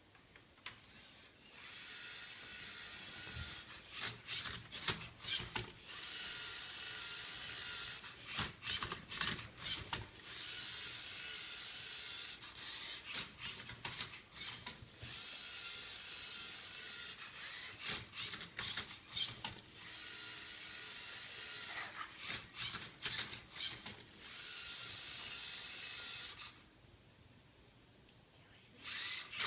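LEGO Mindstorms MindCub3r robot working a Rubik's Cube: its electric motors whir in stretches of several seconds, broken by bursts of clattering clicks as the plastic cube is turned and tipped. It pauses near the end, then starts again.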